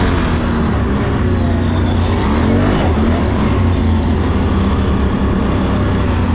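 Can-Am Renegade 1000 ATV's V-twin engine running at speed, heard from the rider's seat, its pitch rising and falling with the throttle.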